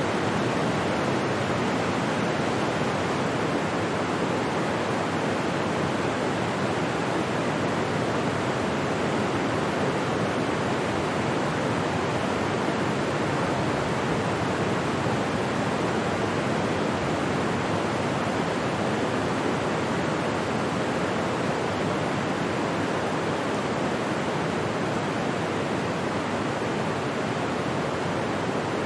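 Steady, even rushing noise that does not change in level or character.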